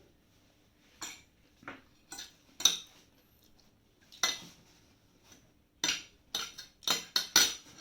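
A spoon clinking and scraping against a plate during eating, in scattered sharp strikes: a few spread out at first, then a quicker run of them in the second half.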